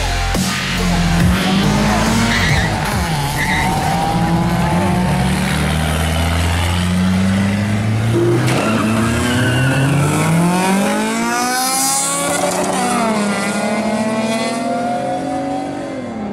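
Race car engine revving hard and accelerating through the gears, its pitch climbing and falling back at each shift, with tyres skidding and squealing.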